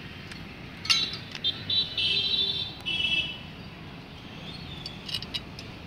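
Metal dish-mount bracket parts clinking and knocking as they are handled and fitted together. About two seconds in there is a loud, high-pitched ringing squeal lasting about a second and a half.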